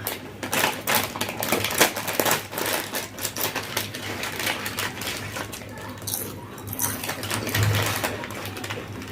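Lay's potato chips crunching and crackling in a quick, dense run of crisp clicks as they are eaten.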